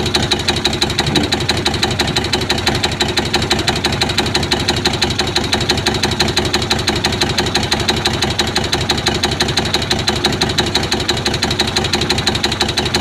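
Isuzu four-cylinder diesel engine running unevenly, with a steady rhythmic knock. The limp comes from a worn number 2 bearing shell.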